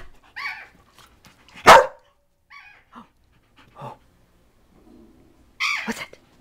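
Dogs barking during rough play: one loud, sharp bark about two seconds in and another loud burst of barking near the end, with quieter short yips in between.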